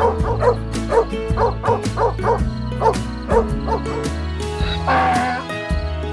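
A small dog yipping: about a dozen short, high yaps in quick succession, then a single longer, rougher call near the end, over background music.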